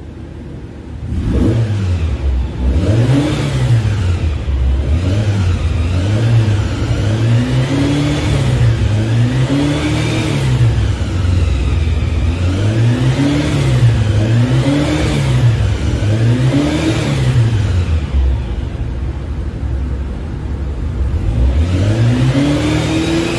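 Freshly broken-in 2180cc air-cooled Volkswagen flat-four with twin carburettors, running on an engine test stand and revved up and down again and again, each rev rising and falling over a second or two. It settles lower for a few seconds near the end, then revs again.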